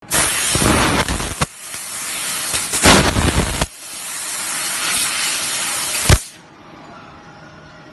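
Fiber laser cutting 10 mm stainless steel with compressed air as the assist gas: a loud hiss of the air jet from the cutting nozzle, with a few sharp pops. It starts abruptly, dips briefly about a second and a half in and again near four seconds, and cuts off about six seconds in.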